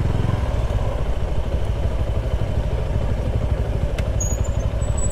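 Motorcycle engine running steadily while riding on the highway.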